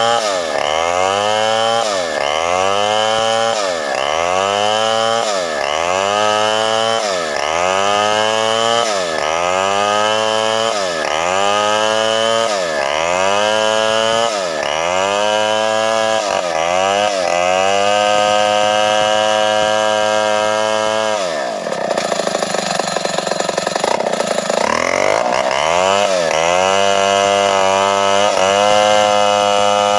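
Two-stroke chainsaw ripping a sengon log lengthwise. For the first half its engine pitch repeatedly sags and recovers, about every second and a half, then holds steady. About 21 seconds in the speed drops sharply to a low, stuttering pace, and it revs back up about 25 seconds in.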